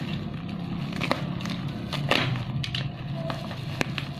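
Handling noise: a few scattered sharp clicks and small knocks over a steady low background hum.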